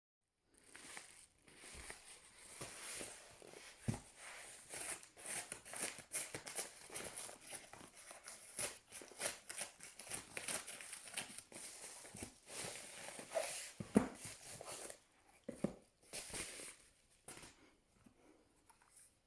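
Product packaging being opened by hand: continuous crinkling and tearing with a few soft knocks, thinning out to scattered faint ticks near the end.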